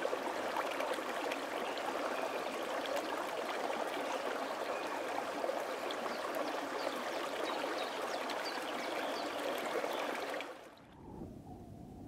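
Stream flowing: a steady rush and babble of running water, which cuts off near the end and gives way to a quieter, low, steady sound.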